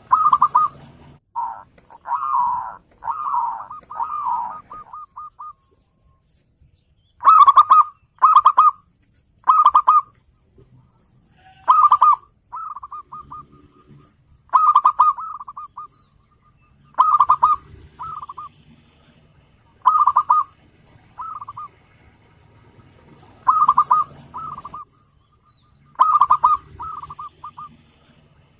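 Zebra dove (perkutut) cooing: repeated phrases of quick rolling coos that trail off into a short trill, about nine phrases with pauses of a second or more between them.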